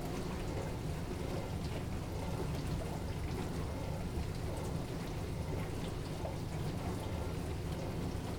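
Dishwasher running, water spraying and splashing inside the tub over a steady low hum, with scattered light ticks.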